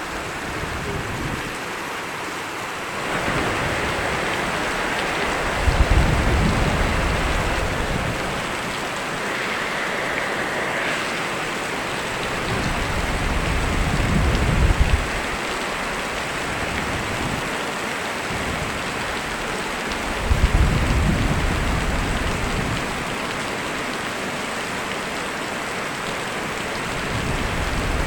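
Steady rain hissing without a break. Four low rumbles of thunder swell up and fade away underneath it.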